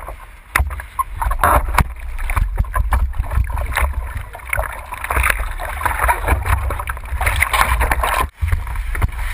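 Ocean water sloshing and splashing against a surfboard's nose and a camera mounted on it, as the board moves through the chop. There is a steady low rumble from water and wind on the microphone and many irregular splashes, with a brief gap near the end.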